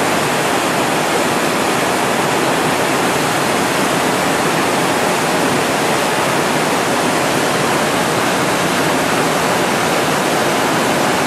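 Creek rapids rushing over rocks: a steady, loud, unbroken rush of water.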